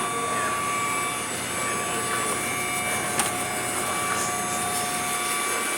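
Kalorik KK290AY-AD robot vacuum running with a steady whir and a two-note motor whine, with a single sharp click about three seconds in.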